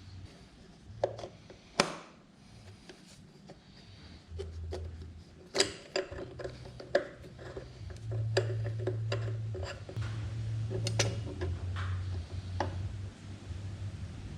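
Scattered metallic clicks, clinks and knocks of hand work on a mini excavator's fuel filter assembly, with an intermittent low hum underneath.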